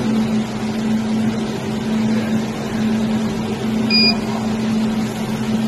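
Jewelry laser welding machine running with a steady low hum, and a single short beep from its touchscreen control panel about four seconds in as a button is pressed.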